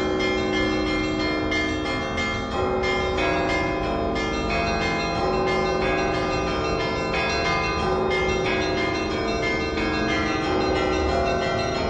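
St. Isaac's Cathedral bells ringing in a continuous Russian Orthodox peal for the evening service: several bells struck in quick succession, their tones overlapping and ringing on.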